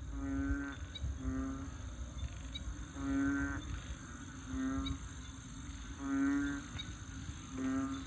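Frogs giving low, bellowing, bullfrog-like calls, each about half a second long. They repeat as a longer call followed by a shorter one, roughly every three seconds.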